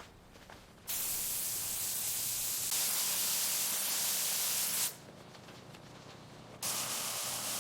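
Paint spray gun hissing in two long passes: one of about four seconds, then, after a short pause, a second starting near the end.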